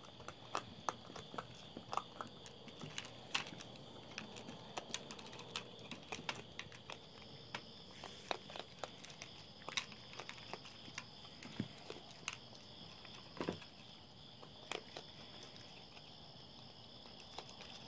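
A raccoon chewing dry cat food from a bowl: irregular crisp crunching clicks. A steady high-pitched tone runs behind it, and a second, higher tone joins about halfway through.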